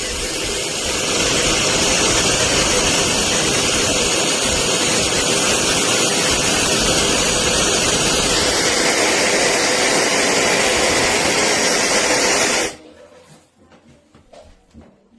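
Wavytalk high-speed blow dryer running: a loud, steady rush of air with a faint high whine. It switches off abruptly near the end.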